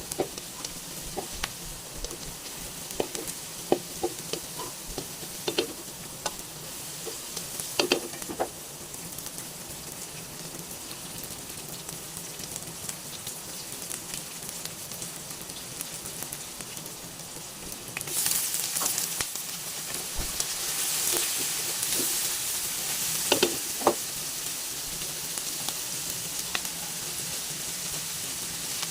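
Food sizzling in a hot pan as it is stir-fried, with scattered clicks and knocks of the stirring utensil against the pan. About eighteen seconds in, the sizzle turns louder and brighter.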